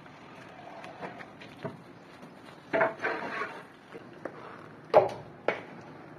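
Plasterer's trowel scraping and spreading wet gypsum plaster over a metal-lath wall, with several sharp knocks of the tool against the wall, the loudest about three and five seconds in.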